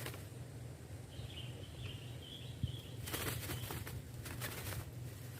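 Captured sooty-headed bulbuls flapping their wings in a short flurry of strokes about three seconds in, with a faint high warbling bird call just before it.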